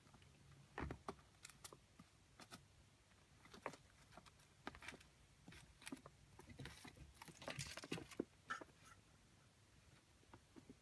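Faint, scattered taps, scuffs and rustles of a Ragdoll kitten batting and pouncing on a feather wand toy on a woven rug, with a busier stretch of rustling a little past the middle.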